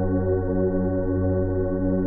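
Spooky ambient music: a steady low drone of held, layered tones that rings like a singing bowl or gong, with no beat.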